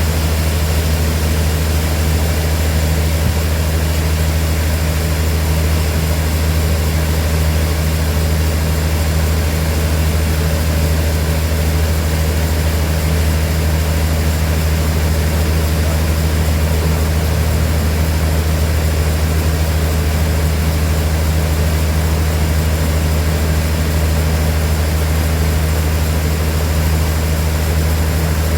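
Sawmill machinery running steadily with a constant low hum, no change in pitch or load.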